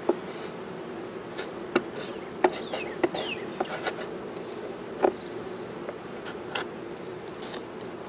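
Honey bees buzzing in a steady hum around an open hive, with scattered sharp clicks and scrapes of a metal hive tool against the wooden box and frames as burr comb is cleaned out; the loudest knocks come about two and a half and five seconds in.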